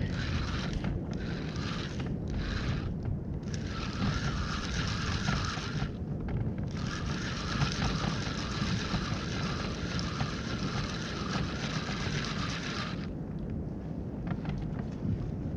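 Spinning fishing reel being cranked, first in a few short spurts, then wound steadily for a couple of seconds and, after a brief pause, for about six seconds more before stopping; the gears whir with a quick, even ripple. Low wind and water noise runs underneath.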